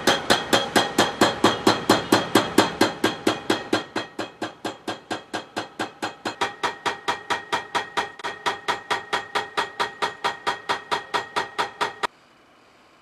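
Hydraulic breaker on a Poclain excavator hammering at a fast, even rate of about five to six blows a second. It gets quieter about four seconds in and stops abruptly near the end.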